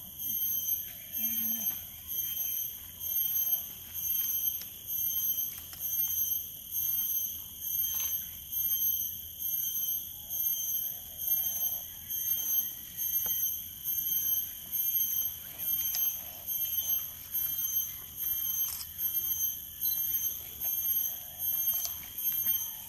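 A high-pitched ringing insect call, swelling and fading in steady pulses about once a second.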